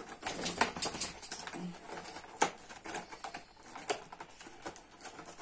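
Cardboard advent calendar packaging crackling and rustling in the hands as a stiff door is forced open and a small item is worked out of it, with a sharp click about two and a half seconds in.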